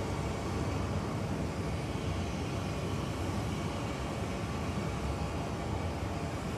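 Steady airport ambience dominated by the even rumble of jet aircraft engines, with no single event standing out.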